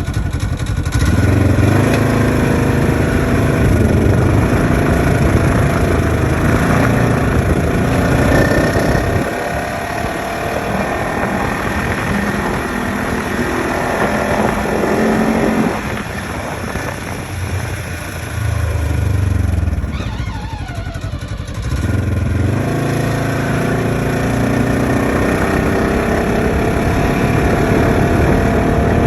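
Turbocharged 2015 Polaris RZR XP4 1000 parallel-twin running and speeding up and easing off several times. About twenty seconds in, a whine falls in pitch as it slows down. The owner says the whine on deceleration remains despite a new drive belt and cleaned clutch sheaves.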